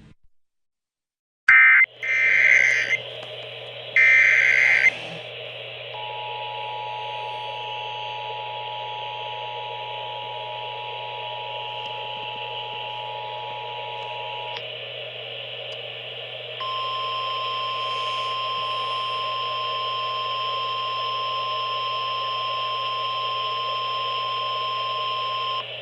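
Emergency Alert System SAME header data bursts from a weather radio: a click, then two loud raspy bursts of digital data about a second apart. They are followed by the EAS two-tone attention signal held steady for about eight seconds, then, after a short pause, the NOAA Weather Radio single-tone 1050 Hz warning alarm held for about nine seconds. All of it sits over steady radio static hiss and hum and marks the start of a new alert broadcast.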